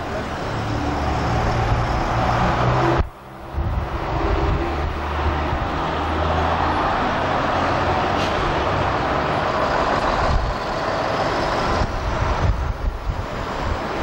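Car engine droning steadily with road noise, heard from inside a moving car. The sound drops out briefly about three seconds in.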